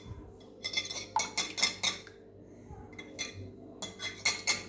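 Five eggs being beaten by hand in a bowl: quick clinking strokes of the utensil against the bowl, in two runs with a pause of over a second between them.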